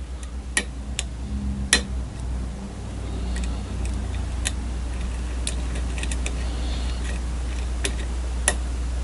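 Lock pick clicking and ticking against the pins inside a custom challenge lock under tension during single-pin picking, a scattering of sharp, irregular clicks. A steady low hum lies underneath.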